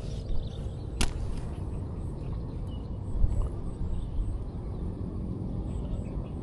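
Wind buffeting the microphone outdoors, a fluctuating low rumble, with one sharp click about a second in.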